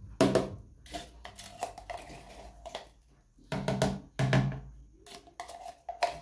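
Plastic spoon knocking and scraping inside a plastic yogurt cup as plain yogurt is scooped out and dropped into milk: a string of irregular sharp taps, the loudest a little over halfway through.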